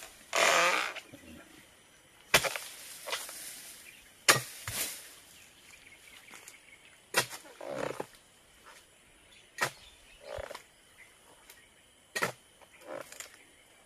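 Oil palm harvesting chisel (dodos) chopping into the frond bases of a young oil palm: about six sharp chops two to three seconds apart, several followed by a brief rustling swish.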